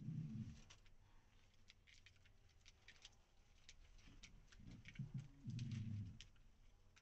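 Male pigeon cooing in courtship, two low coos, one at the start and one about five seconds in. Light scratchy clicks of feet and feathers on the gravel come in between.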